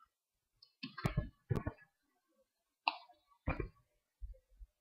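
A handful of sparse clicks from a computer keyboard and mouse, about five short separate taps spread over the few seconds with silence between, as the Tab key and mouse are used.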